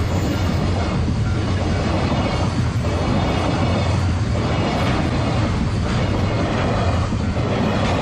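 Freight train's Koki 104 container flatcars rolling past close by, a steady loud rumble with wheels clattering over the rail joints in a pattern that repeats about every second and a half.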